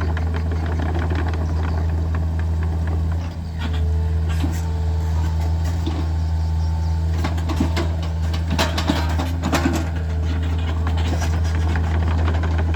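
Hitachi mini excavator's diesel engine running steadily, with scattered clanks and knocks through the middle and a faint high tone that comes and goes.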